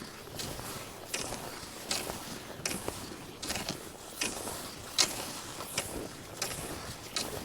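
Regular strides through snow, a crunching scrape about every three-quarters of a second over a steady hiss.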